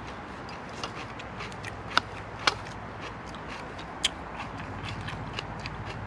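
Knife cutting orange pepper on a small plastic chopping board, with pieces set into a bowl: light scattered ticks and taps, and three sharp clicks about two, two and a half and four seconds in.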